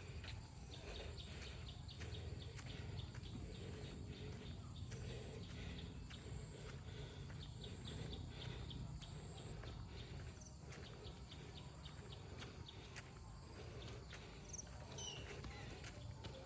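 Faint outdoor ambience: a steady low rumble with scattered small clicks, and a few brief high bird chirps about ten seconds in and again near the end.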